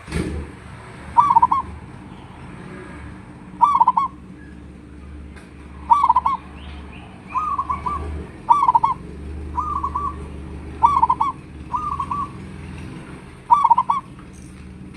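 Zebra dove (local perkutut) cooing its song: about nine short, rolling trilled coos, repeated every one to two seconds. A steady low rumble runs beneath.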